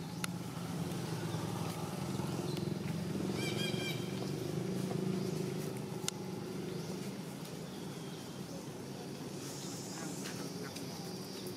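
A steady low engine hum runs throughout, with a short run of high squeaky calls about three and a half seconds in and a sharp click about six seconds in.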